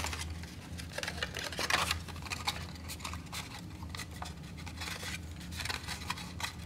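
Cardstock rustling and scraping in the hands as its legs are rolled over the round wooden handle of an awl to curve them, with scattered small clicks and a louder scrape about two seconds in.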